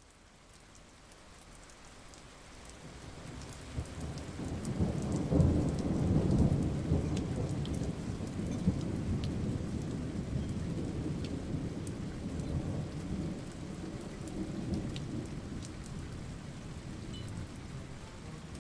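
Thunderstorm: rain hiss with a long rolling rumble of thunder that swells up out of silence, is loudest about five to seven seconds in, then slowly dies away.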